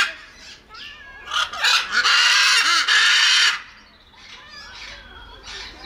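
A macaw gives a loud squawk about a second and a half in, lasting about two seconds. Softer short calls follow.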